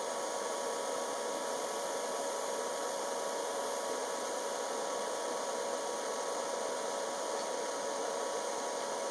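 DC TIG welding arc from a Jasic TIG 200P AC/DC inverter at 72 amps on 1.5 mm stainless steel sheet: a steady hiss with a faint, even hum.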